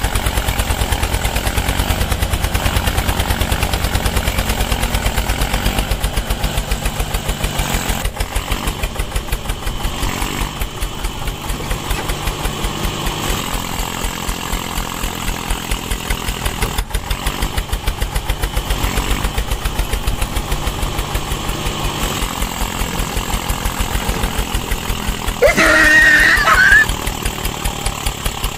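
Small engine of a homemade mini tractor running with a fast, even firing rhythm. Near the end a brief, loud, high-pitched sound with a wavering pitch cuts in over it for about a second.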